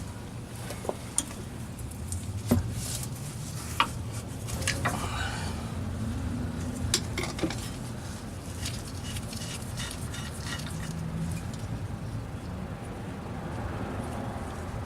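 Metal hand tools clinking, knocking and scraping against metal, with scattered sharp clicks and a stretch of scraping in the middle, over a steady low hum.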